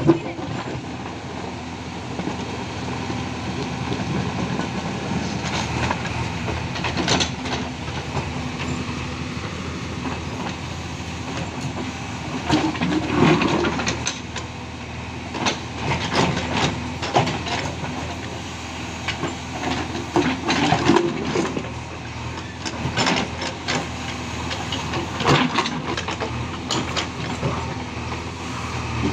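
JCB 3DX backhoe loader's diesel engine running steadily, rising in a few surges as the backhoe digs. Repeated clanks and knocks come from the bucket and arm working the soil.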